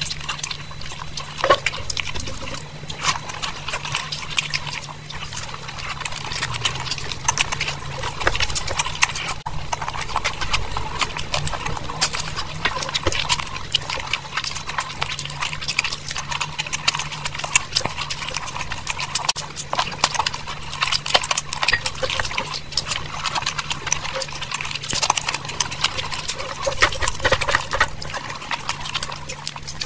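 Close-miked eating sounds: wet chewing and lip-smacking of a mouthful of curry and rice, with the squish of rice being mixed into curry by hand, a dense run of small wet clicks.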